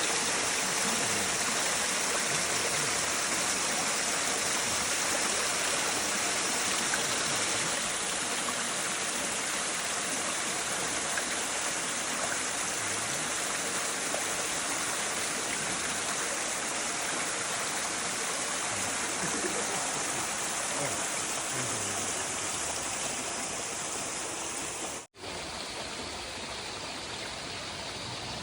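Waterfall: a steady rush of falling, flowing water. It breaks off for an instant near the end and resumes slightly quieter.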